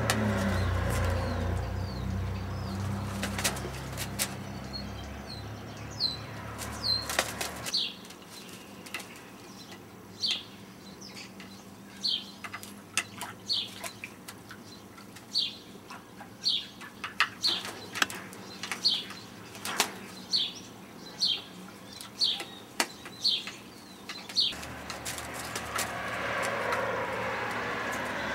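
African grey parrot bathing in a shallow water dish, flapping its wet wings and splashing. For much of the middle stretch a run of short, high, falling chirps repeats about once a second, then the flapping and splashing start again near the end.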